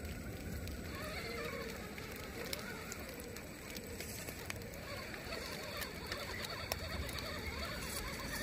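Small RC crawler truck creeping over forest litter: scattered light crackles and ticks from twigs and needles under its tyres, over a steady background hiss.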